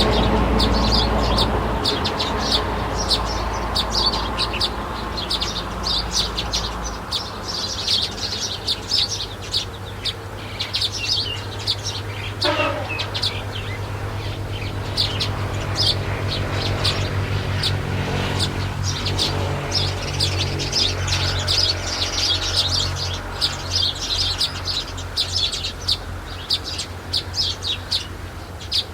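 Small birds chirping rapidly and continuously, many short high chirps overlapping, over a low steady hum that is strongest for the first few seconds.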